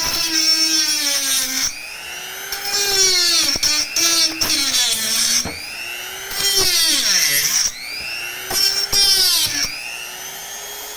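Handheld rotary tool running and grinding PVC pipe. Its high whine sags and rises in pitch, and there are about four louder stretches of grinding with quieter running between them.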